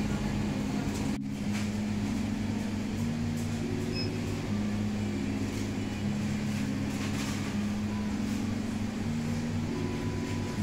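Background music: a slow, low melody of held notes that change pitch every second or so.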